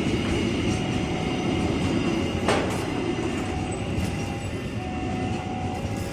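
Freight train of loaded flat wagons rolling through at speed: a steady, loud rumble of wheels on rail, with one sharp clack about two and a half seconds in and a faint thin ringing tone that comes and goes.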